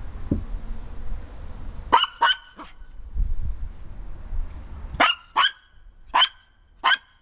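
A Maltese dog barking: a quick run of three short barks about two seconds in, then four more spaced barks from about five seconds on. Low thumps come before the first barks.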